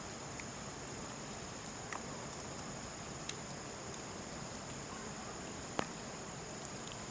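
Steady high-pitched insect chorus, with a few scattered sharp clicks, the loudest about two thirds of the way through.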